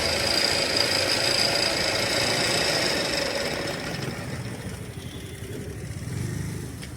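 Pedal-operated mixer grinder running, its blade spinning with a steady mechanical whir and a high whine that fades out about four seconds in.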